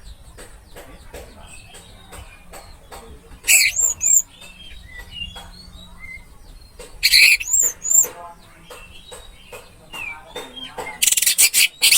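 Orange-headed thrush song: loud bursts of high whistled phrases about three and a half and seven seconds in, then a fast run of rapidly repeated notes near the end, with softer chirps in between.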